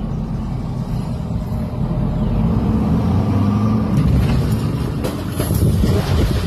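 A large engine running with a low, steady rumble, with a few short knocks about four to five and a half seconds in.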